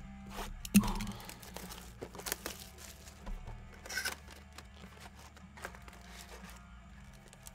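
Trading-card pack wrappers being torn open and crinkled, with the cards handled, in scattered short crackles; one sharp knock about a second in.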